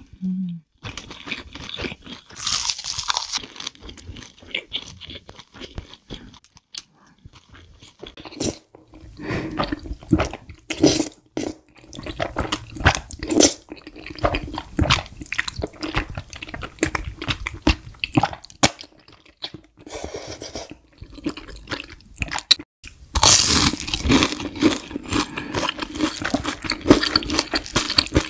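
Close-miked eating sounds: chewing and crunching with sharp wet mouth clicks, as a woman eats spicy fried rice and then creamy spicy udon noodles. There are brief pauses about a third of the way in and again near 23 seconds.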